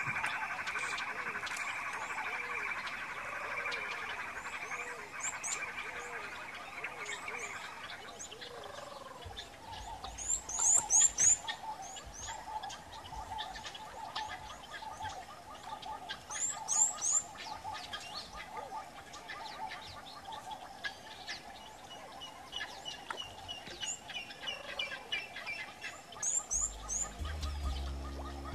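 Nature sound track of birds calling: clusters of quick, high, rising chirps, the loudest several times through, over a steady background chorus that turns pulsing about eight seconds in.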